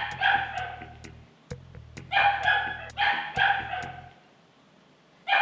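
A dog barking repeatedly, mostly in quick pairs of barks, with a few sharp clicks between them. The barking pauses for about a second near the end, then starts again.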